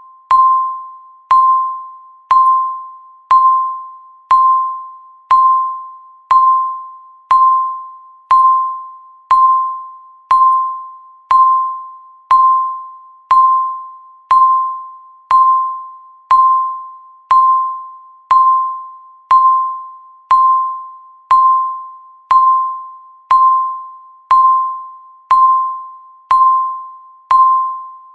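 Countdown timer beeping once a second: a single electronic tone that starts sharply and fades away before the next one, in a steady even rhythm.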